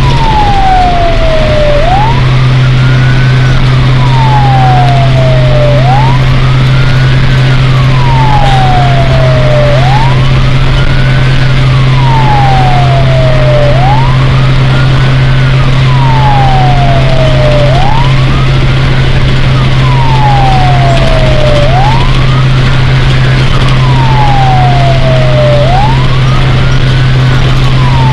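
Fire truck siren wailing, heard from inside the cab. Each cycle rises quickly and falls slowly, repeating about every four seconds, over the steady low drone of the engine.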